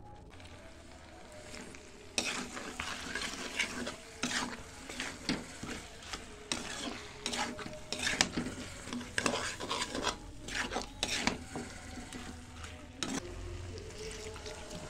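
Metal spatula stirring and scraping chicken masala as it fries and sizzles in a metal pan, in many quick irregular strokes after a softer first couple of seconds. Near the end, water is poured into the hot pan.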